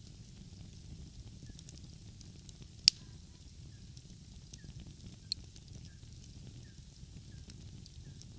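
Wood fire crackling, with a few sharp pops standing out, the loudest about three seconds in, over a steady low rumble.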